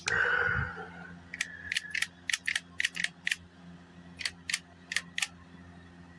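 P2P HDP 50 pepper-round air pistol worked by hand: a short loud rush of noise at the start, then about a dozen sharp mechanical clicks over the next few seconds, like a trigger and action being worked over and over. The gun is losing its gas through what the owner takes for a bad seal, so it is not firing properly.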